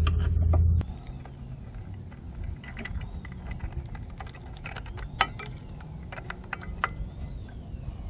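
Scattered light metallic clicks and clinks of drum brake parts and hand tools being handled while the rear brake shoes and springs are fitted. A steady low background sound cuts off about a second in.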